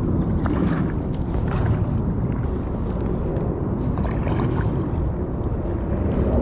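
Kayak being paddled through shallow water: paddle and hull swishing and splashing irregularly over a steady low rumble.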